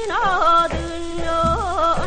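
Korean seodo sori folk singing from an early gramophone record. A singer's wavering, heavily ornamented melody runs over a sustained accompanying tone, with low drum beats falling about every three-quarters of a second. The recording has no high treble.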